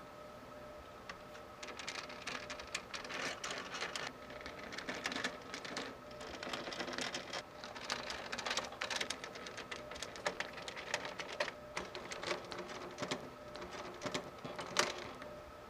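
Hands handling computer parts and their plastic packaging: irregular rustling, crinkling and small clicks that start about a second and a half in, with one louder click near the end. A faint steady whine sits underneath.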